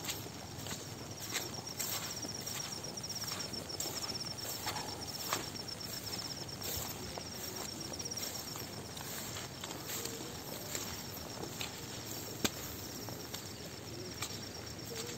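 Footsteps on grass and soil as someone walks, with an insect trilling at a high, steady pitch from about a second in until past the middle.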